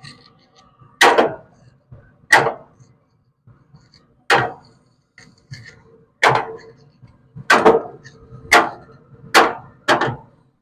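Eight sharp knocks at uneven intervals as hamburger patties are set down one after another on the grill grates, some leaving a faint metallic ring.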